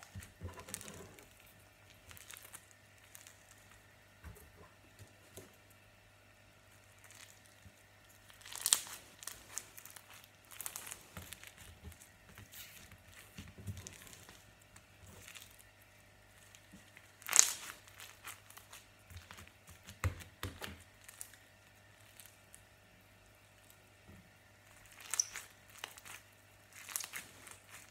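Foam-bead slime squished and kneaded by hand: scattered crunchy crackling and popping from the foam beads, with a few sharper, louder crackles about 9 and 17 seconds in and again near the end.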